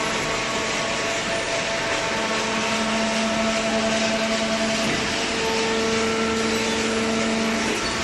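Large hydraulic cardboard baler running: a steady mechanical hum with a constant noisy hiss, its low hum swelling about two seconds in and easing just before the end.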